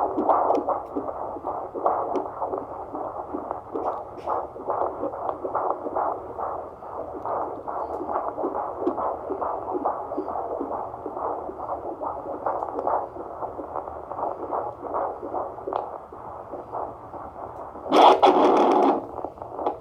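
Fetal Doppler monitor's speaker playing a baby's heartbeat: fast, even, whooshing pulses, about two and a half a second. Near the end, a short, loud burst of noise cuts across it.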